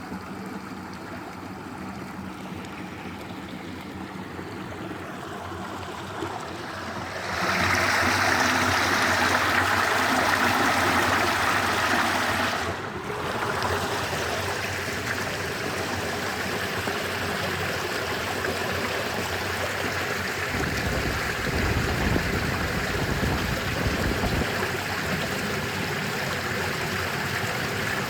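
Stream water running steadily over rocks. It gets louder about seven seconds in, breaks off for a moment near the middle, and a low rumble joins it from about twenty seconds in.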